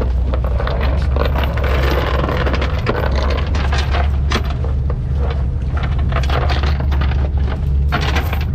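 Anchor line and chain hauled in by hand over a fiberglass boat's bow: the metal chain clatters and knocks against the gunwale in many irregular strikes, over a steady low rumble.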